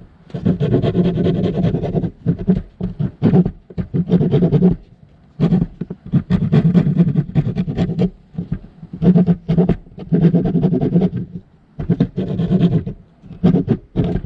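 Hand rasp scraping back and forth around the edge of a hole cut in a travel trailer's roof, enlarging it to fit an antenna base. The strokes come in runs of a second or two with short pauses between.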